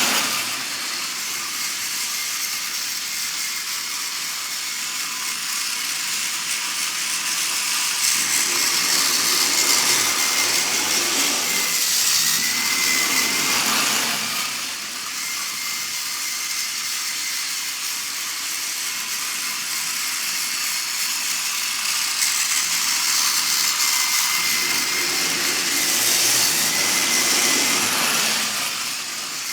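Battery-powered TOMY Plarail toy trains running on plastic track: a steady whirring small-motor whine with wheel and track rattle. It swells louder twice, around the middle and near the end.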